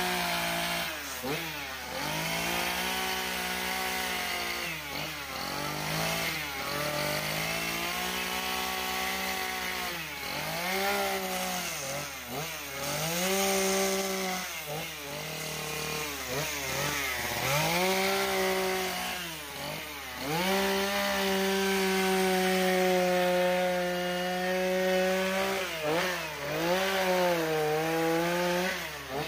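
Echo two-stroke chainsaw cutting into a wood carving block, its engine revving up and dropping back many times. Later it holds steady high revs for about five seconds before dipping and rising again.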